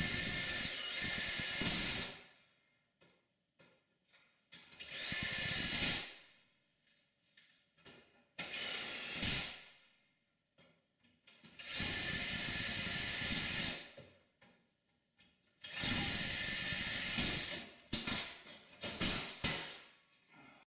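Cordless drill run in repeated bursts of about two seconds against the Power Mac G4's sheet-metal chassis, with a thin high whine in each burst and pauses between, then a few shorter bursts near the end.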